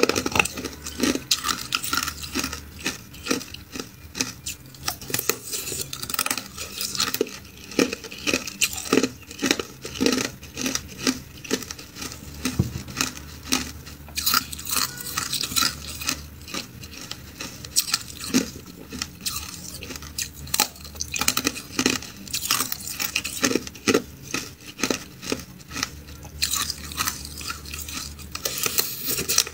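Pieces of ice being bitten off and crunched between the teeth, with loose ice clinking in a bowl: a dense run of sharp cracks and crunches.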